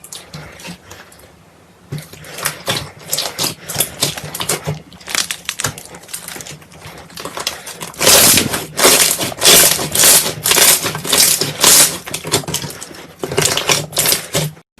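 Slime being squished and pressed by hand, with dense crackling and popping of trapped air. It is quiet for a moment about a second in, then grows to loud squelching presses about twice a second in the middle.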